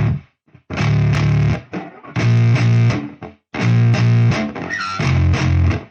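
Music: a distorted electric guitar and bass riff played in stop-start blocks of about a second, with short silences between them.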